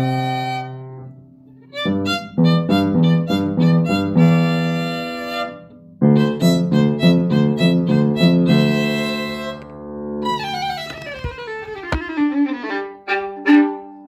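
Experimental music with bowed-string, violin-like tones playing quick runs of repeated notes in two phrases, broken by short pauses. Near the end the pitches slide downward in glides, with a few sharp clicks.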